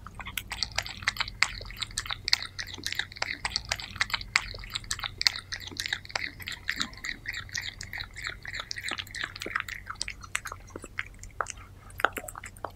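A cat licking and chewing soft food close to the microphone: rapid, irregular wet clicks and smacks, many a second.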